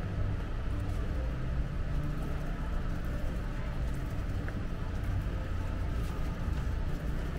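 Shopping cart rolling across the store floor: a steady low rumble.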